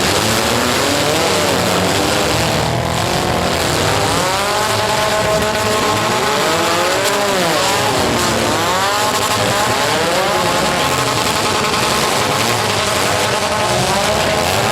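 Several compact-car engines revving up and down at once, their pitches rising and falling across one another, over a steady loud din.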